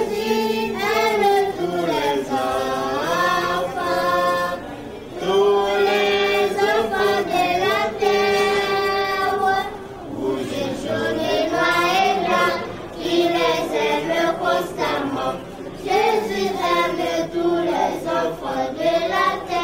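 A choir of high voices singing a song, with long held notes and short breaks between phrases.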